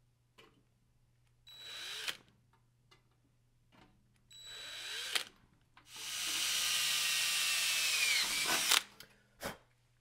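Cordless drill with a 1/8-inch bit boring small holes through a thin sheet-metal rack panel: two short bursts, then a longer run of about three seconds whose whine drops as the drill slows near the end. A brief click comes near the end.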